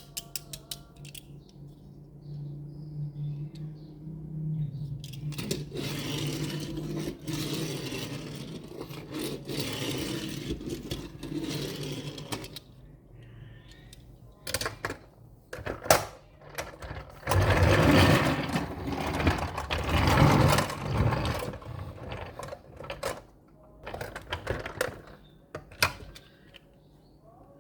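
Die-cast toy construction trucks being handled: clicks and knocks of small metal and plastic parts, with stretches of rolling and scraping, loudest about two thirds of the way through.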